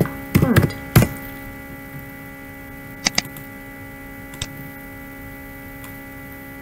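Steady electrical mains hum on the recording, with a few louder sounds in the first second. A quick double mouse click about three seconds in and a single click a little later.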